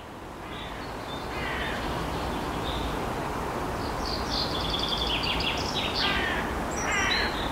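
Outdoor ambience with birds calling: several short bursts of harsh, repeated calls and some higher chirps. These sit over a steady background rush that swells during the first second.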